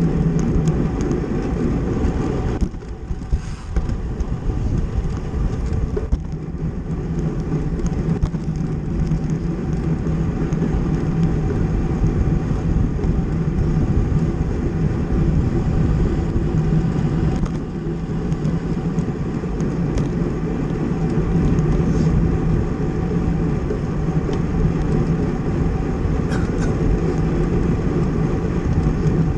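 Steady rushing noise of a bicycle ridden at race speed: wind over the microphone and tyre rumble on the road. It eases briefly about three seconds in.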